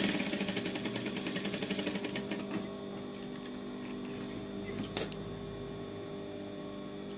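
Industrial single-needle lockstitch sewing machine stitching fast, a rapid even run of needle strokes, which stops about two and a half seconds in. A steady hum carries on after it, with a few light clicks near the end.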